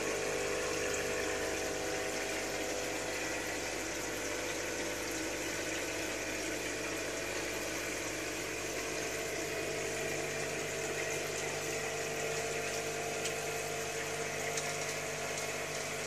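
Aquarium pump running with a steady hum, with water bubbling and churning in the tank.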